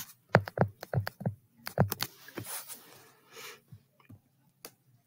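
Stylus tapping and sliding on a tablet screen during handwriting: a quick run of sharp clicks in the first two seconds, then softer scratching and a few scattered taps.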